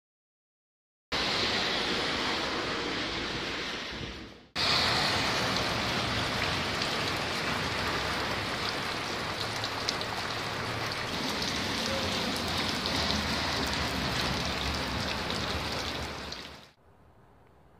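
Steady rain falling on a wet asphalt road, a continuous even hiss. It begins about a second in, breaks off for a moment about four and a half seconds in, and stops shortly before the end.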